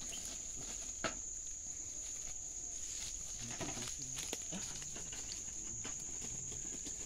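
Steady high-pitched drone of forest insects, with a soft knock about a second in and a few faint low sounds in the middle.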